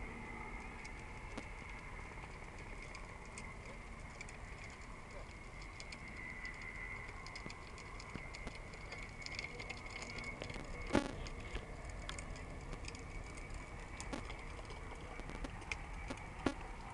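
Helicopter flying a low display pass at a distance: a faint, steady whine over a low hum, with scattered sharp clicks, the loudest about eleven seconds in.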